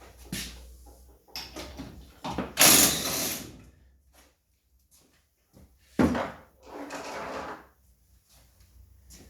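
Clunks, knocks and scrapes of a car wheel being taken off its hub and handled. The loudest clunk comes about three seconds in.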